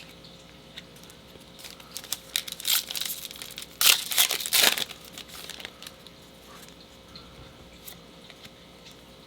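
A trading-card pack's plastic wrapper being torn open and crinkled in hand. The crackling starts about a second and a half in, is loudest around four seconds in, and dies away by about six seconds.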